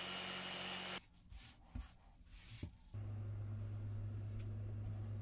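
Jigsaw running as it cuts a plywood panel, stopping abruptly about a second in. A few faint knocks and rustles follow, then a steady low hum starts near the middle and carries on.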